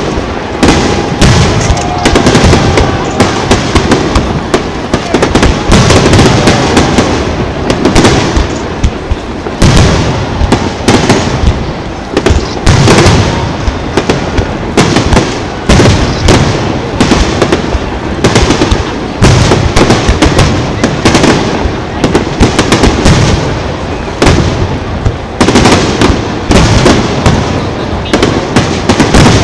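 Aerial firework shells bursting in rapid succession, loud booms and crackles overlapping several times a second.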